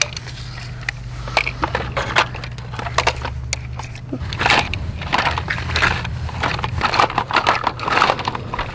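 Plastic bucket of a Bruder toy backhoe digging into dirt: a run of irregular crunching and scraping.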